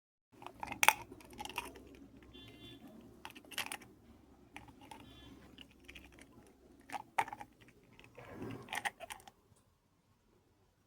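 A pet gnawing and cracking at a walnut shell: irregular sharp clicks and cracks, busiest around seven to nine seconds in, then stopping about a second before the end.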